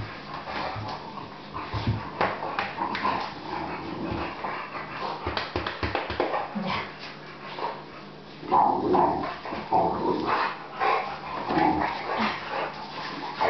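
Two boxer dogs snuffling and licking at a person's face in rough play, with wet clicking mouth noises, scuffles and short whimpers. The sound grows louder about eight seconds in.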